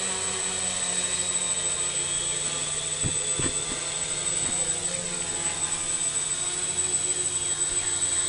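Roughly 500-size quadcopter hovering in GPS position hold: its electric motors and propellers buzz steadily, with a high whine over the buzz. Two short knocks about three seconds in.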